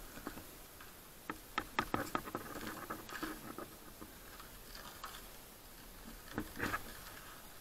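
Plastic bag and bubble wrap crinkling and crackling as hands pull and tear at the wrapping, in a dense flurry from about a second in and a shorter one near the end.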